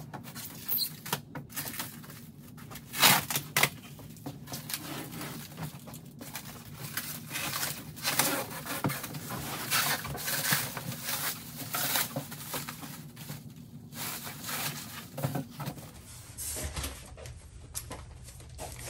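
Plastic stretch wrap being pulled and torn off a packaged unit, crinkling and crackling irregularly throughout, with one sharper, louder crackle about three seconds in.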